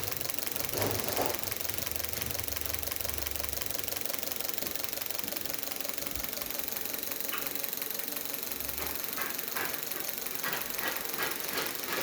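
Fiat Uno Fire four-cylinder petrol engine running at a steady idle with a fast ticking, on its repaired ECU with the immobilizer disabled. A few sharper clicks come in the second half.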